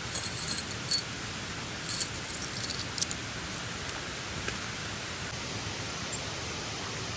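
Steady rushing noise of rain and a nearby waterfall, with a few quick metallic jingles and clinks, like keys or small gear, in the first three seconds.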